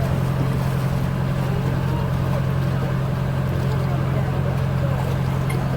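Motorboat engine running at a steady speed, a constant low drone with an even rush of noise over it.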